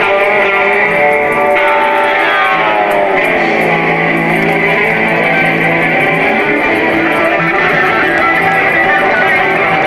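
Live band playing, with strummed guitars carrying the music. There is a falling slide of notes about one to three seconds in.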